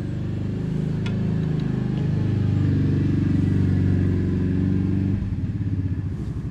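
A motor vehicle's engine running under load, its pitch wandering as the level climbs, then easing off about five seconds in to a lower, pulsing run.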